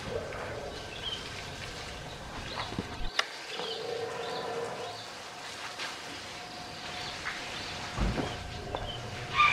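Steady hiss of water spraying from a garden hose and splattering on an elephant and the wet concrete floor, with small birds chirping in the background and a sharper, louder sound near the end.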